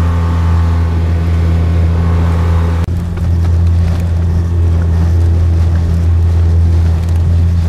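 Tohatsu 20 hp outboard motor running steadily at cruising speed, pushing an inflatable boat through light chop, with a brief dropout about three seconds in.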